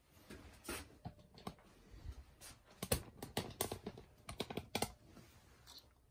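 Irregular light clicks and taps of small objects being handled on a metal surface, thickest in the middle: gold drill shavings being set on the steel sample plate of an XRF analyzer.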